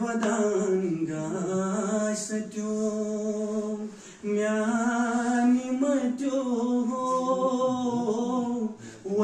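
A man singing a song unaccompanied, holding long, sliding notes, with a brief pause for breath about four seconds in.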